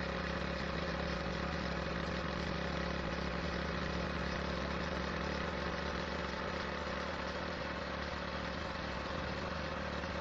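Vehicle engine running at a steady cruising speed, a constant hum with tyre and wind noise, heard from the moving vehicle.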